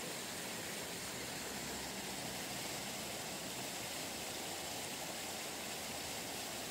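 Steady rushing of a river flowing beneath a bridge, an even hiss with no breaks.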